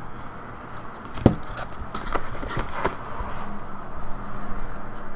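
Handling noise from a card in a plastic holder being moved about: a few light clicks and scrapes, the sharpest about a second in, over a faint steady hum.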